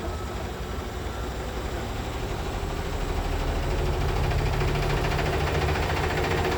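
Beko WMY81283LMB2 washing machine drum starting to spin with an unbalanced load: a steady low rumble that grows louder about halfway through as the drum speeds up.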